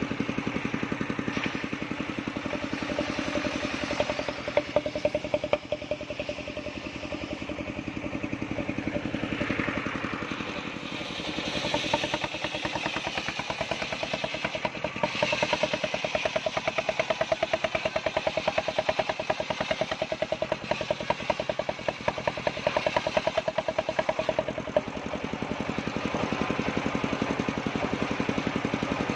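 Engine-driven homemade circular sawmill running steadily while its large blade rips a waru log lengthwise. The higher cutting noise of the blade in the wood is strongest through the middle of the stretch.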